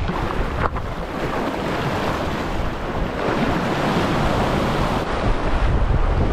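Surf washing and breaking against the granite blocks of a jetty, with wind buffeting the microphone.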